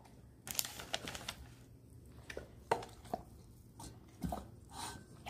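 Faint handling sounds: a short rustle of butcher paper, then a few scattered soft taps and clicks as pieces of meat are put into a stainless steel dog bowl.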